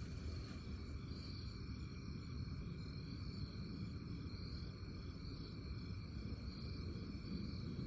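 Steady high-pitched chorus of crickets or similar insects, with a low rumbling noise underneath.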